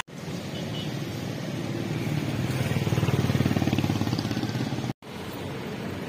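A motor vehicle's engine running close by, its rapid low pulsing getting louder to a peak a little past the middle, over street noise. It breaks off abruptly about five seconds in, leaving a steady traffic hiss.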